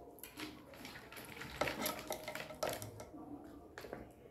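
Metal spoon scraping and clinking against a glass plate of crab and rice, a string of irregular clicks and scrapes, loudest between about one and a half and three seconds in.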